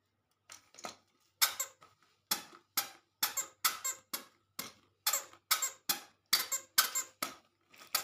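Toddler's squeaker sandals squeaking with each small step in a baby walker: short sharp squeaks, about two a second, starting about half a second in.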